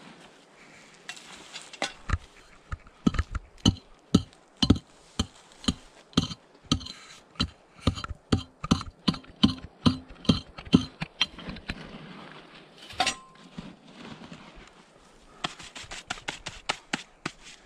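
A shovel striking into hard ground in a steady series of blows, about two a second, then one harder strike that rings briefly, then a quicker run of blows near the end.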